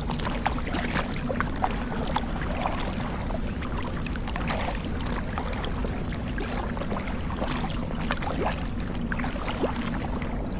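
Water splashing and lapping against an inflatable kayak out on the sea, with many small irregular splashes over a steady low hum.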